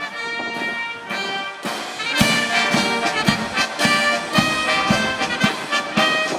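Military brass band playing, with a steady drum beat of about two strokes a second coming in about two seconds in.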